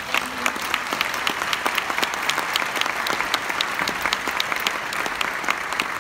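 Audience applauding: dense, steady clapping from many hands, with single sharp claps standing out.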